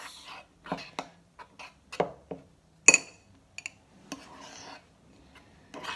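Scattered knocks and clinks of a utensil against a bowl while slime is being mixed, with one bright ringing clink about three seconds in.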